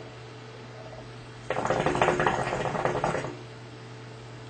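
Hookah water bubbling and gurgling as smoke is drawn through the hose, for about two seconds starting a second and a half in, over a steady low hum.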